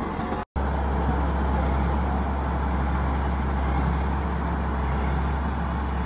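Diesel engine of an MC 26M single-drum road roller running steadily with a deep, even drone. The sound cuts out for a split second about half a second in, then resumes unchanged.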